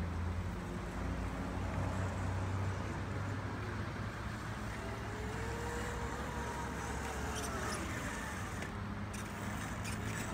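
Kids' electric mini moto's motor whining, rising in pitch and then falling away as the rider speeds up and slows, over a steady low hum.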